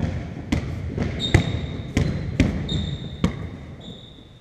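Basketballs bouncing on the sports hall's wooden floor: about five sharp bounces at an uneven pace. In the second half come three short, high squeaks.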